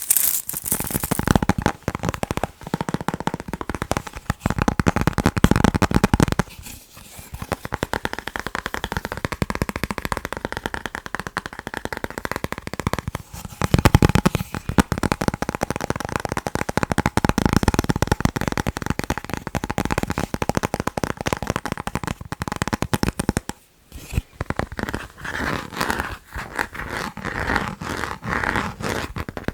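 Fast, continuous tapping on chocolate and its packaging, many quick taps a second, broken by two brief pauses, about a quarter of the way in and near the end.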